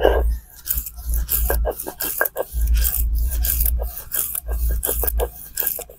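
Stone roller rubbed back and forth on a flat grinding stone (sil-batta), wet-grinding soaked rice and urad dal into batter by hand. It makes rhythmic grinding strokes in quick succession.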